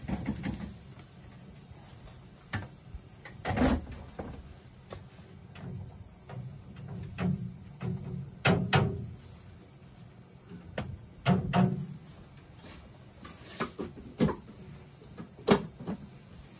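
Irregular wooden knocks and clunks as honey super frames and the metal lid are handled in a steaming stainless-steel wax melter, a dozen or so scattered strikes.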